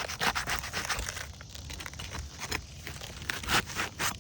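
Roof shingle being pried up, crackling and tearing as it comes loose. A dense run of crackles in the first second, then scattered ones.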